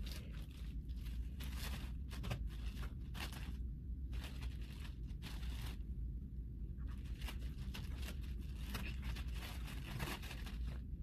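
Packaging rustling and crinkling as a bag and its wrapping are pulled open by hand: a run of short scrapes and rips with brief pauses.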